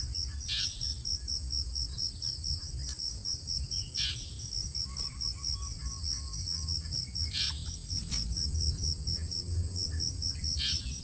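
Cricket chirping in a steady pulsed trill, about five pulses a second, over a continuous high-pitched tone and a low hum, with a few faint clicks.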